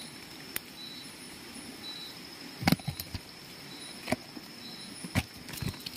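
A handful of sharp knocks and clatters from a weighted fishing net being handled over river stones, the loudest about two and a half seconds in. Under them, night insects trill steadily at a high pitch.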